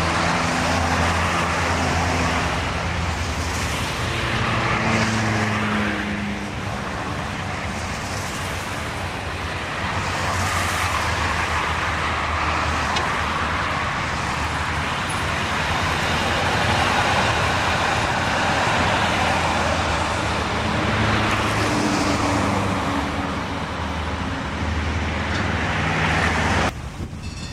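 Duewag articulated tram running along ballasted track, a steady rumble mixed with road traffic noise and a low hum that shifts in pitch now and then. The level drops suddenly near the end.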